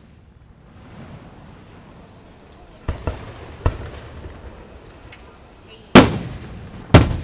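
Aerial fireworks shells bursting: two fainter bangs about three seconds in, then two loud booms a second apart near the end, each trailing off.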